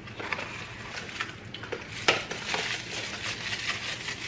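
Packaging being unwrapped by hand: crinkling and rustling wrapping with light clicks and taps, and one sharper click about two seconds in.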